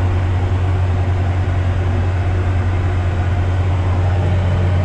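Large farm tractor's diesel engine running steadily under load, heard inside the cab, as the tractor pulls a chisel plow across the field. It is a constant low drone with no change in pitch.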